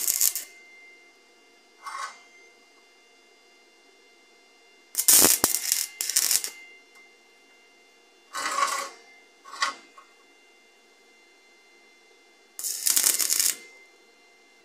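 Stick (arc) welding: the electrode's arc crackling and sputtering in about six short bursts, each under a second and a half, as plug welds are laid through drilled holes in a steel flat bar to fix it to square tube.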